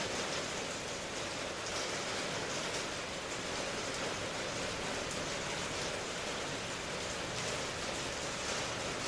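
Steady rain falling, an even hiss with fine patter of drops on a surface.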